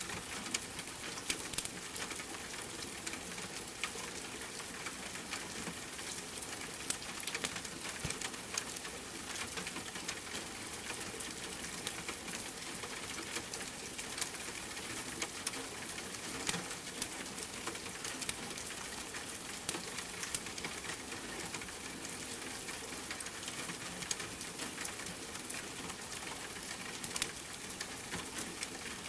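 Steady rain mixed with a crackling wood fire: an even hiss with frequent small scattered pops and ticks.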